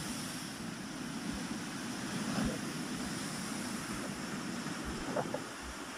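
Tsunami surge of seawater rushing and churning over a seawall and across a flooded road, a steady rush of water heard through a phone's microphone.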